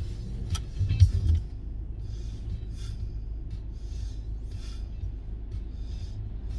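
Steady low road rumble inside a moving car, with faint music playing on the car stereo whose light beat ticks along evenly. A brief thump comes about a second in.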